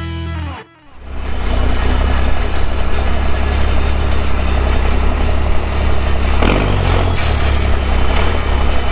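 Music cuts off about half a second in. The engine of an old tow truck then runs steadily at low speed, heard from inside its cab.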